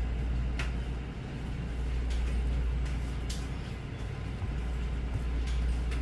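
Steady low background rumble, with a few faint clicks from a small drink carton being handled.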